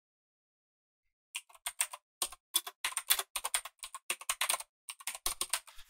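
Typing on a computer keyboard: after a short pause, a quick run of about twenty separate keystrokes as a short line of text is typed.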